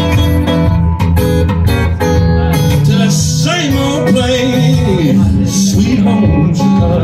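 Live blues: an acoustic guitar strummed in a steady rhythm, with a lead line that bends up and down in pitch over it a few seconds in.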